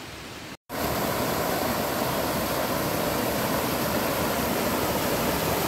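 Steady rush of a small forest waterfall, cutting in abruptly after a brief silence about half a second in; just before it, only faint quiet ambience.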